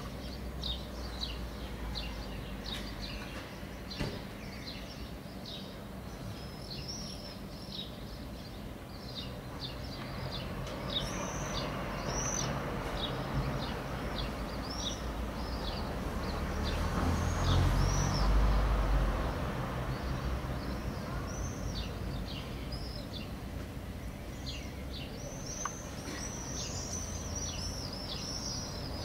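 Many birds giving short, high, arching chirps over and over, with steady outdoor background noise. About halfway through, a low rumble swells and fades.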